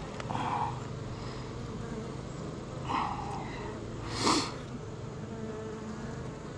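Honeybees buzzing steadily around an open hive, with single bees buzzing loudly close past now and then. About four seconds in there is a brief louder rush of noise.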